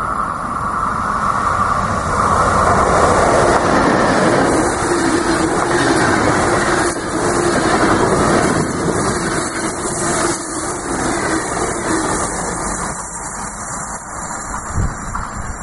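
A Deutsche Bahn Intercity passenger train passing close at speed: a loud, steady rush of coach wheels on the rails, with a held tone early on and a lower one through the middle. It eases off about thirteen seconds in as a more distant train approaches.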